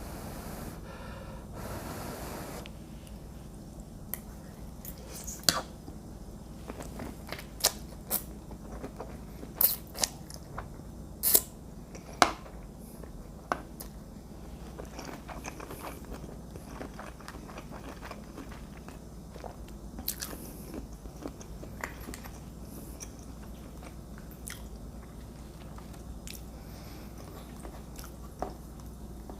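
A person chewing and biting into shrimp, mussels and fettuccine in tomato garlic sauce, close to the microphone. A short rushing noise comes at the start, then sharp clicks, most of them between about 4 and 14 seconds in.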